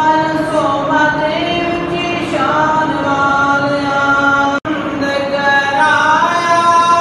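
Chanted singing in long held notes that glide from one pitch to the next, cut by a sudden, very short dropout about four and a half seconds in.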